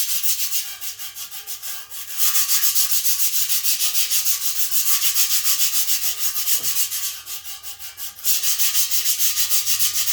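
80-grit sandpaper rubbed over the rusty, pitted steel tubes of exhaust headers in quick back-and-forth strokes, about four or five a second. The strokes go lighter twice, about a second in and again near the end.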